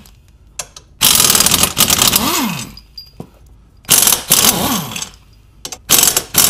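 Cordless impact wrench hammering out 16 mm crash-tube bolts in several short bursts, its motor whine rising and then falling with each pull of the trigger.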